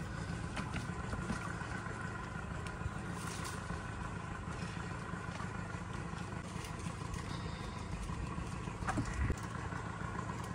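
A small boat's outboard motor running steadily at low speed, with a short knock about nine seconds in.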